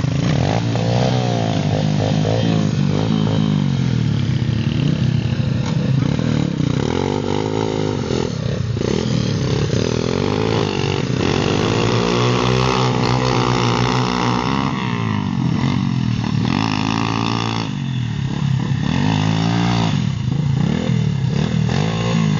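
Small pit bike engine revving up and down over and over as the bike is ridden through loose sand, its pitch rising and falling every second or two.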